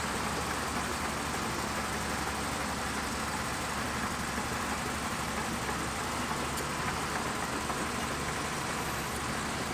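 Shantui DH17C2 bulldozer's diesel engine running steadily, an even mechanical drone with no changes in pitch or level.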